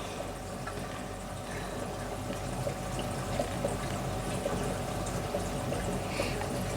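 Aquarium filtration running: a steady trickle of moving water over a low steady hum.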